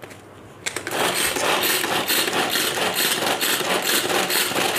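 Plastic vegetable chopper chopping cabbage, onion, ginger, green chillies and garlic: a fast, rhythmic whirring rattle that starts a little under a second in.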